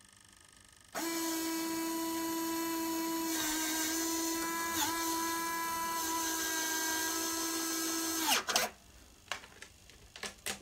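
Electron electric retract actuator on a 1:5 scale Saab 37 Viggen model's main landing gear, running with a steady whine for about seven seconds as it folds the gear leg up. It starts about a second in, winds down in pitch as it stops, and is followed by a few light clicks.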